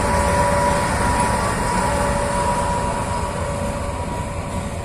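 TGM8KM diesel shunting locomotive passing and pulling away, its engine running with a steady whine over the low rumble of wheels on the rails. The sound eases slightly near the end as it moves off.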